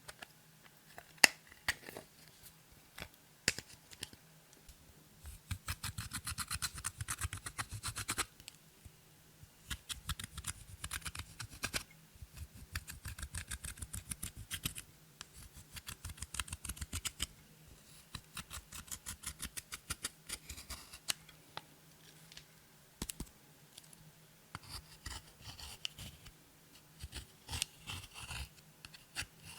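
Slime being squeezed and worked by hand, making runs of rapid small clicks and pops a few seconds long, with short quieter gaps between them.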